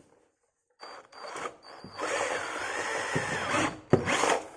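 Makita drill boring a hole: after a few short handling noises, the drill runs for about two seconds from about two seconds in, its motor whine wavering in pitch, then gives a brief second burst near the end.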